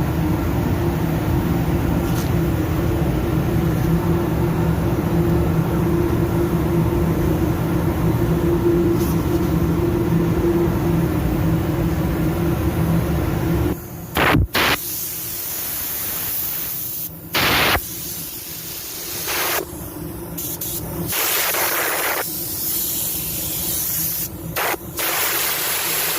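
A steady machine hum with hiss for about the first half, then a paint spray gun hissing in a series of short passes that start and stop abruptly as the trigger is pulled and released.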